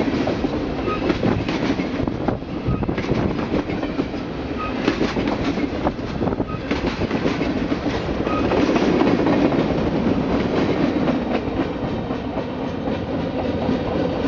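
Freight train of tank cars rolling past close by: a steady rumble with the wheels clacking over the rail joints.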